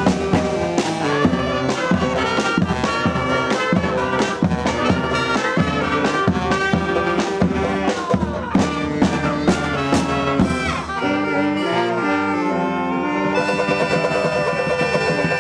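A live brass band (trumpets, trombones and saxophones) playing an upbeat groove over steady drum hits. About thirteen seconds in, the horns move to long held notes.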